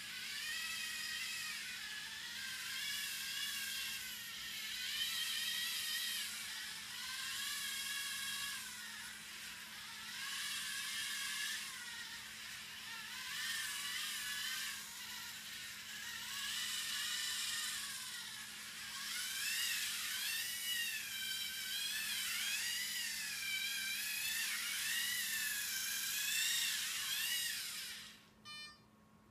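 Lego EV3 motors driving Rotacaster omni wheels, a whine whose pitch rises and falls over and over as the robot speeds up, slows and changes direction. It stops suddenly about a second before the end.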